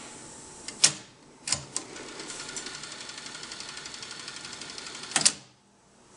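Kenwood KX-1060 cassette deck's piano-key transport: a few loud clunks as a key is pressed, then the tape rewinds at speed with a steady whir and a fast, even ticking. About five seconds in, the counter-memory stop halts the tape at zero with a loud double clunk as the key releases.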